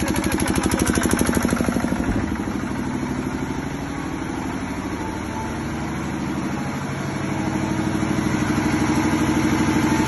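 A single-cylinder, radiator-cooled diesel engine on a 7.5 kVA generator set runs steadily at idle with a fast, even chugging beat. It grows somewhat quieter in the middle and louder again near the end.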